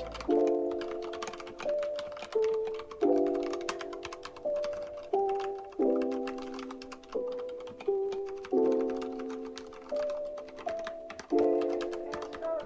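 Typing on an Akko 3068 mechanical keyboard, a steady stream of rapid key clicks, over background music of struck chords that fade and change in a repeating pattern.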